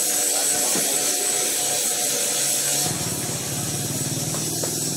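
Street noise with a small engine running close by. Its buzz turns lower and more strongly pulsing about three seconds in.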